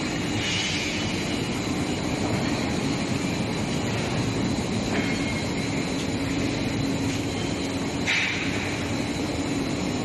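Long steel-bar induction hardening and tempering line running: a steady mechanical rumble of rolling machinery with a low hum and a faint high steady whine. A few short higher hissing or scraping sounds come in now and then.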